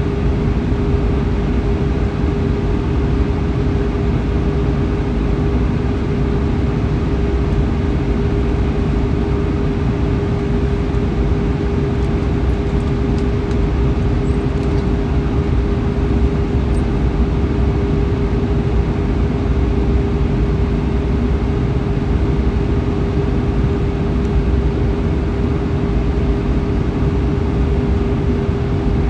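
Steady cabin noise of an Airbus A320 in flight: a low rumble of engines and airflow with a constant mid-pitched hum on top.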